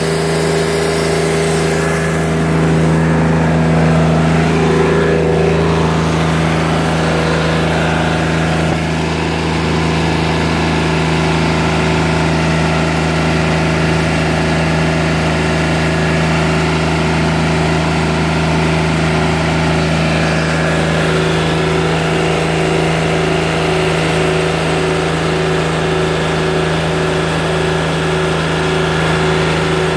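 Wood-Mizer portable band sawmill running steadily, its engine driving the band blade through an English walnut log.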